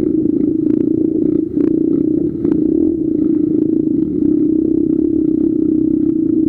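Dirt bike engine running steadily at low revs on a rough trail, its note dipping briefly twice, with light clatter and knocks from the bike over the ruts.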